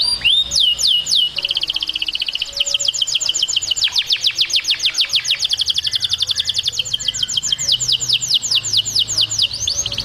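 Domestic canary singing: a few swooping whistles, then a long rolling tour of rapidly repeated falling notes that slows toward the end.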